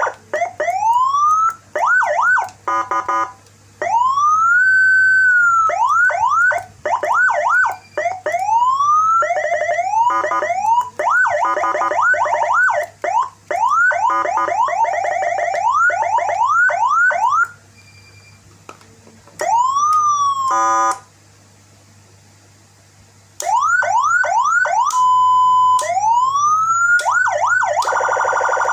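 Senken CJB 150BD electronic vehicle siren sounding through an STS speaker, switching every few seconds between its tones: slow rising wails, quick repeated yelps, fast warbles, a steady held tone and a buzzy pulsed horn-like blast. Two short pauses come in the second half.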